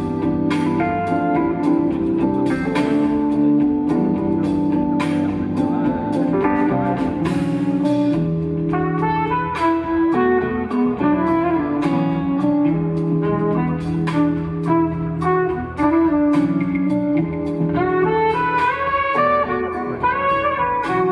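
Jazz-fusion band playing live: guitar and horns over drums, with a melodic line climbing in pitch near the end.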